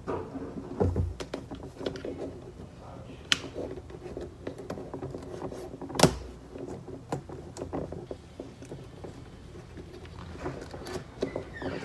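Hands pressing and working adhesive contact paper on a kitchen countertop: scattered soft rubs, taps and clicks, with one sharp click about six seconds in.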